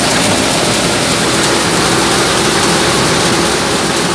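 Multi-crop thresher running steadily: a loud, even rushing noise with a low steady hum, along with threshed pearl millet grain pouring from the outlet chute into a metal pot.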